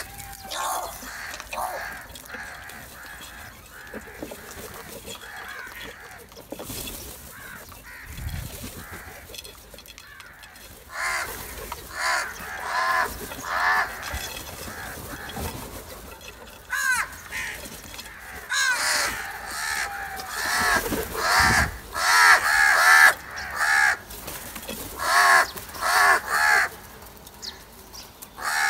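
House crows cawing, a few scattered calls at first, then many caws in quick runs from about eleven seconds in, loudest and most crowded over the second half.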